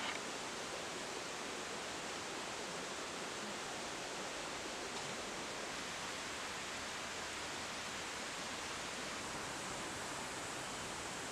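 Steady, even outdoor hiss with no distinct events, such as wind in the foliage or distant running water gives, with one small knock right at the start.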